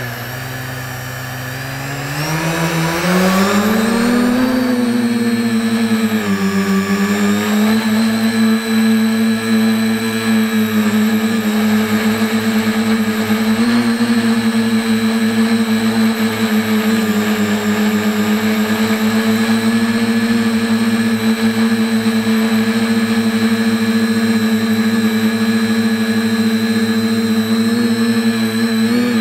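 H-frame quadcopter's electric motors and propellers whining, heard up close from its onboard camera. The pitch and loudness rise about two to four seconds in as it throttles up and lifts off, dip briefly a couple of seconds later, then hold steady in flight.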